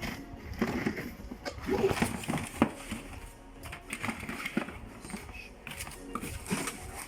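Irregular plastic clicks, knocks and rustles of vacuum cleaner attachments being handled, over quiet background music.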